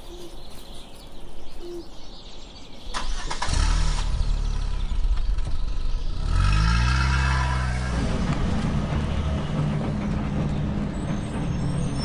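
Heavy-machinery diesel engine starting about three seconds in, rising in pitch around six seconds in, then running steadily.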